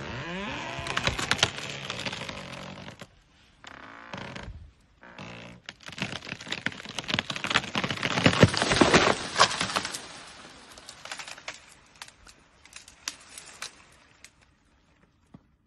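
A tree being pushed over by an elephant: a creak right at the start, then a long run of wood cracking and snapping that is loudest about eight to nine seconds in as the tree gives way. Scattered cracks and crackles of branches follow and die away near the end.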